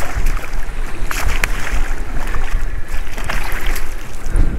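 Strong wind buffeting the microphone over rough open water, with the hooked redfish splashing at the surface beside the boat. A few sharp clicks come about a second in.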